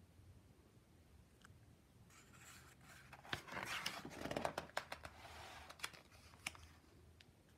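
Paper rustling and crinkling as a picture book's page is turned, with several sharp little clicks. It starts about two seconds in and lasts about four seconds.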